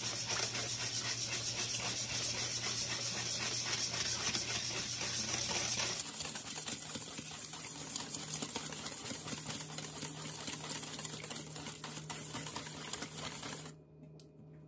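Wire whisk scraping quickly and continuously around a stainless steel mixing bowl, beating a thick, creamy sauce. The whisking stops about a second before the end.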